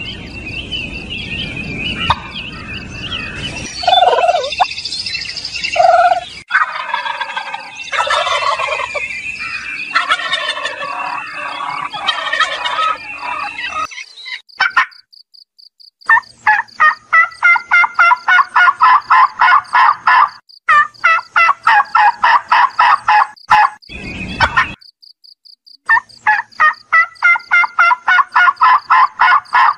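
Domestic turkeys calling and gobbling: a jumble of calls, then long runs of fast, even pulses, cut off abruptly several times.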